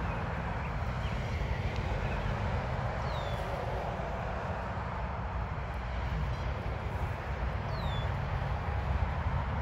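Steady outdoor rumble and hiss, with two short falling bird chirps, about three and eight seconds in.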